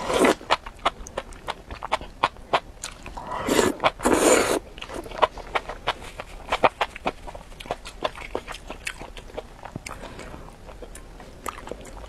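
A person slurping up strands of enoki mushroom and chewing with many quick wet smacking clicks; loud slurps come right at the start and again about three and a half to four and a half seconds in.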